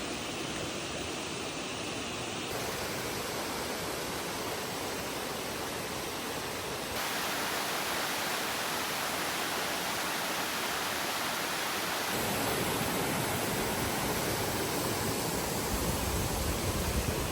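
Waterfall water rushing: a steady, even noise whose tone shifts abruptly a few times, with a low rumble coming in near the end.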